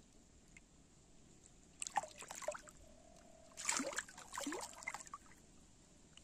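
Hooked carp thrashing at the surface of shallow water, splashing in two bouts: a short one about two seconds in and a longer, louder one from about three and a half to five seconds.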